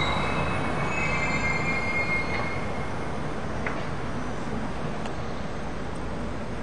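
Tram wheels squealing on the rails: a high, thin squeal that fades away about two and a half seconds in, leaving a steady rumble of street traffic.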